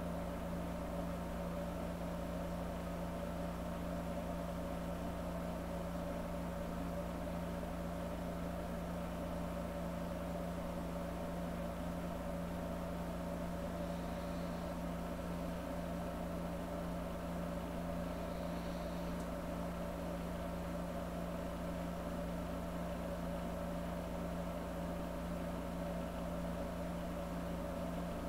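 A steady, unchanging low droning hum with a second, higher steady tone above it, with two faint short high tones about halfway through.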